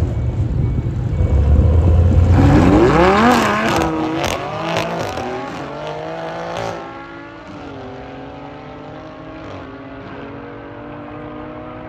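A car accelerating hard, its engine note climbing and dropping back with each gear change. It is loudest a few seconds in, then fades as the car pulls away.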